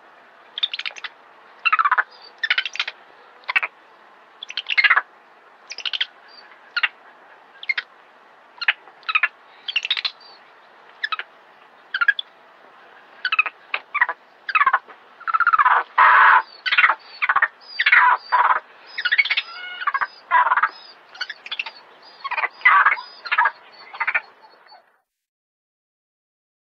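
A young macaque giving short, sharp distress calls over and over while a snake is coiled around its body, the calls coming faster and louder in the second half before cutting off abruptly near the end.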